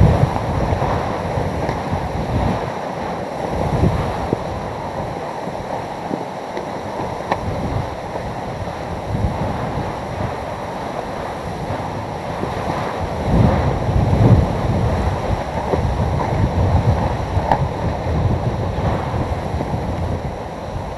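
Hurricane eyewall winds blowing hard and gusting, buffeting the microphone with heavy low rumbles over a steady rushing noise; the strongest gusts come about 13 to 15 seconds in.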